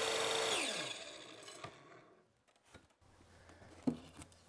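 Kreg track saw (plunge-cut circular saw) running, then switched off about half a second in, its motor and blade winding down with a falling whine as the final cut of the cutout is finished. After that, a few light knocks of the loose plywood cut-out panel being handled, the loudest near the end.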